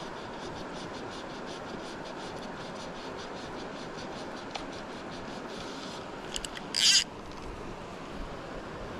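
Steady rush of a fast-flowing river over stones. About seven seconds in, a brief, sharp swish as a fly line is ripped off the water and through the air during a Spey cast.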